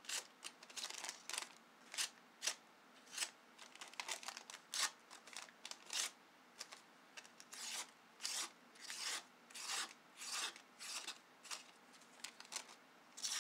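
A freshly sharpened Leatherman E33L knife blade slicing through a paper receipt, with many short, crisp cutting strokes, about one or two a second.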